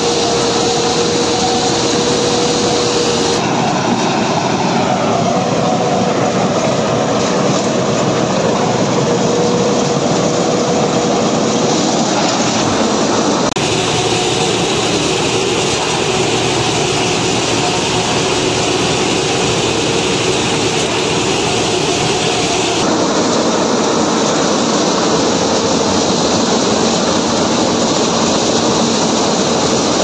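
Japanese compact rice combine harvester running at work in the paddy: a loud, steady machine noise of engine and cutting and threshing gear, with a constant humming tone. The sound shifts abruptly a few times.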